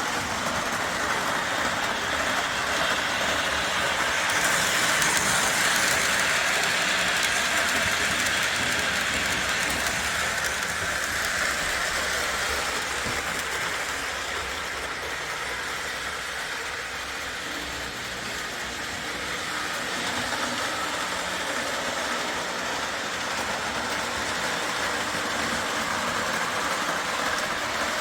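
Lionel Alco 225 O gauge toy diesel locomotive pulling a string of ten 027 cars on three-rail track: a steady rolling rattle and motor whir that swells and fades as the train goes round the layout.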